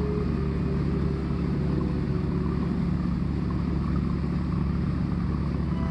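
Steady low drone of a boat engine under way, with a constant rush of wind and water.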